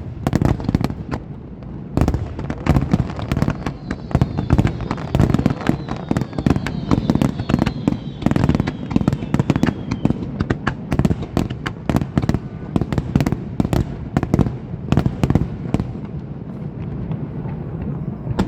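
An aerial fireworks display with shells bursting in quick succession, a dense run of sharp cracks and booms overlapping one another. Faint falling whistles run under the bursts from a few seconds in until about the middle.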